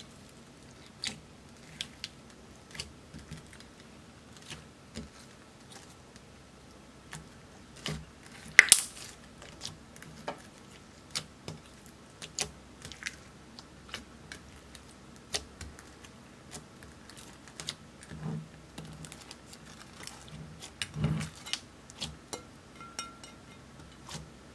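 Clear slime with red makeup and glitter mixed in being kneaded and squished by hand, giving irregular sticky clicks and pops. The loudest pop comes about eight and a half seconds in, with another louder squelch around twenty-one seconds.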